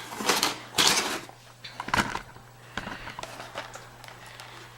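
A packaged dog-treat bag rustling as it is handled, in a few short bursts, over a low steady hum.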